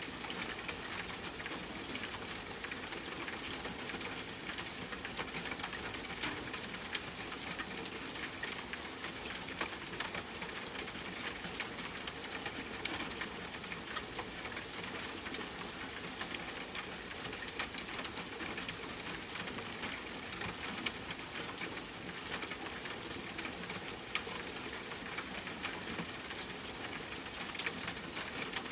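Steady rain falling, a dense even hiss with the close pattering of many individual drops.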